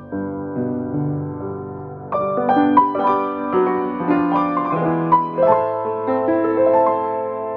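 Piano playing a gentle melody over chords. About two seconds in it gets louder, with quicker, higher notes.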